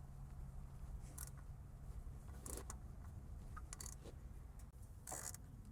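Faint, irregular metallic clicks and scrapes of an oil filter wrench adapter being worked on a tight oil filter, a few seconds apart, over a low steady hum.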